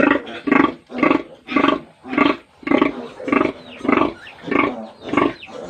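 Nursing sow grunting in a steady rhythm, about one grunt every half second or so, as her litter of newborn piglets suckles. Regular grunting like this is how a sow calls her piglets to the teats and accompanies milk letdown.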